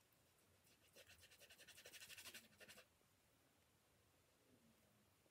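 Faint, fast scratchy rubbing, about ten strokes a second, starting about a second in and lasting nearly two seconds: a small object being rubbed by hand.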